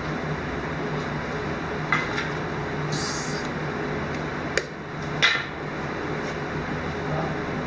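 Steady machine hum with a few sharp metallic clicks and taps as a MIG welding torch is set against a thin steel tube, and a brief high hiss about three seconds in.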